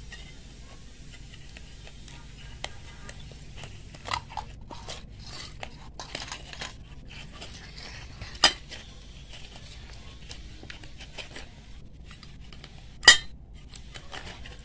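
Oiled wheat-flour dough kneaded by hand in a small stainless-steel bowl: faint rubbing of hands and dough, with a few sharp clinks of the steel bowl. The louder clinks come about eight seconds in and again near the end.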